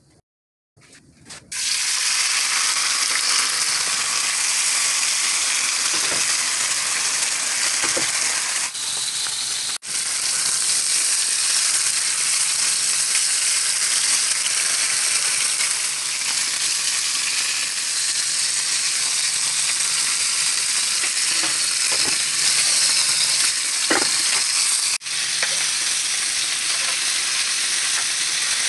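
Steak searing in hot oil in a frying pan: a steady, loud sizzle that starts about a second and a half in and drops out briefly a few times.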